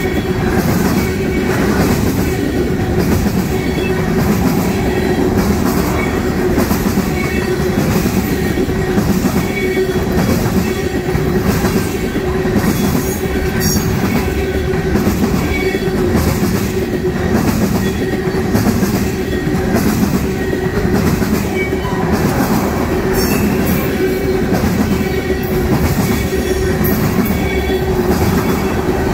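Train of empty railroad tank cars rolling past close by: loud, continuous rumble of steel wheels on rail, with a steady rhythm of clicks as the wheels cross rail joints.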